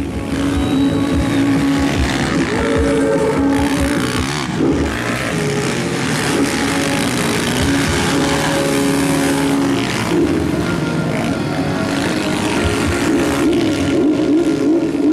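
Motor engines running and revving, their pitch wavering up and down, over a loud noisy background.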